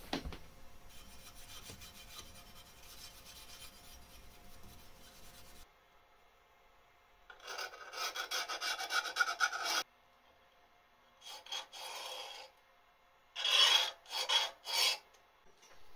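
Steel scriber scratching along the edge of an old mower blade onto a blued steel blank, marking out its outline: one long stroke, a shorter one, then several quick strokes near the end.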